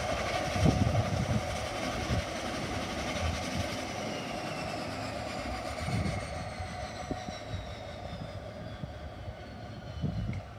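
Aircraft turbine engine whine: a steady hiss with faint tones slowly falling in pitch, and a few low rumbles near the start, about six seconds in and near the end.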